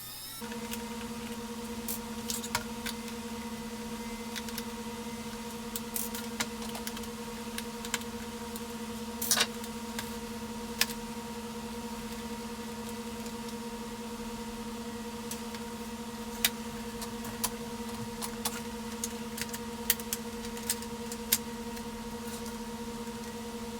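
A steady electrical hum that starts suddenly about half a second in and holds throughout. Over it come scattered light clicks and taps of small plastic and metal fan parts and a small screwdriver being handled during disassembly.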